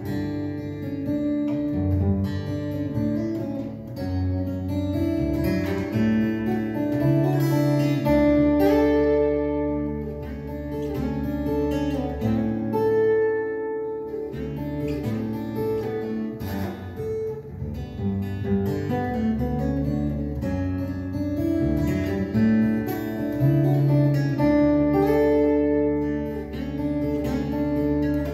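Solo acoustic guitar played fingerstyle in open CGCGCD tuning: a plucked melody over low bass notes that ring on.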